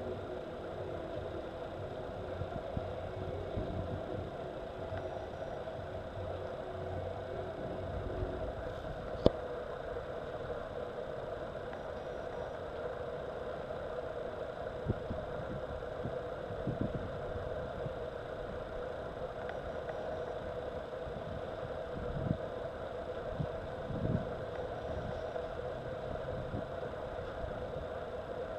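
A steady mechanical hum, like an engine or motor running at idle, with a few scattered knocks and one sharp click about nine seconds in.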